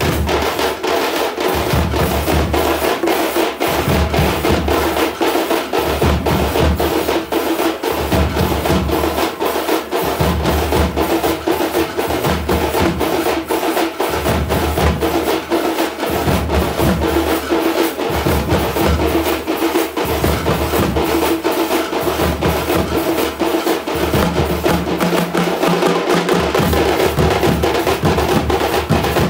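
A troupe of large drums beaten with sticks, playing a fast, continuous rhythm with a deep beat that comes and goes about every second.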